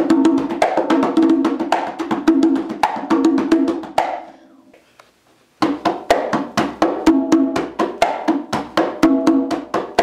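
Conga drum played with bare hands: a fast rhythm of ringing hand strokes on the drumhead, breaking off for about a second around the middle and then starting again.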